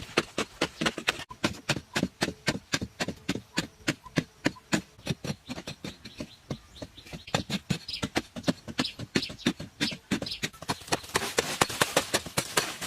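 Rapid, steady knocking or tapping, about four to five strikes a second, with a rising hiss under it near the end.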